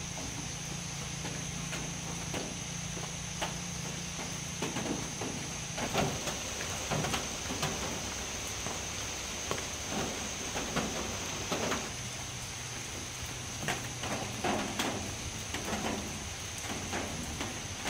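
Freshly steamed sticky rice being turned and scraped with a wooden paddle in a woven bamboo tray to let the steam off. It makes short, irregular scrapes and knocks, more of them from about five seconds in, over a steady hiss of rain.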